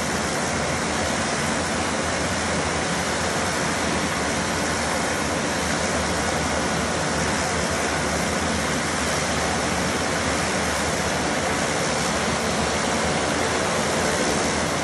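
Engines and propellers of a small turboprop passenger plane heard from inside its cabin: a loud, steady drone with a low hum under it.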